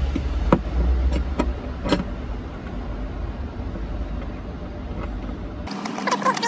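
A steady low rumble with three sharp metallic clicks in the first two seconds, from hand tools and bolts on the battery hold-down bracket. The rumble cuts off abruptly near the end.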